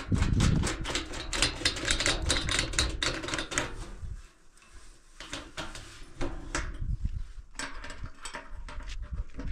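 Rapid clicking and light knocking on a stainless steel sink as a plastic drain fitting is worked into place under the basin. The clicks come several times a second for about four seconds, then grow sparse and quieter.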